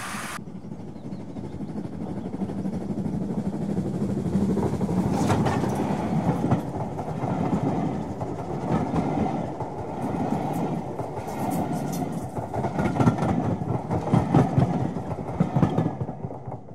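A full-size train passing close by: a continuous rumble of wheels on the rails with irregular clicks and clatter, building over the first few seconds.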